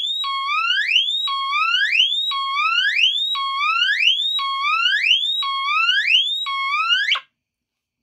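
Teledyne Water-Pik D-2 SonicSiren smoke detector's electronic piezo horn sounding its whoop tone on test: a shrill tone sweeping upward, repeating about once a second, then cutting off about seven seconds in.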